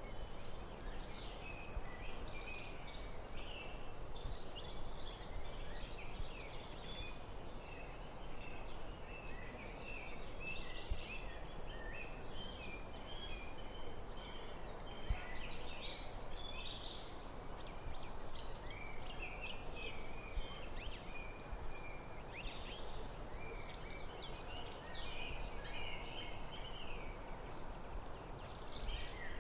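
Forest birdsong: many birds chirping and calling in quick, overlapping short notes, over a steady low background noise.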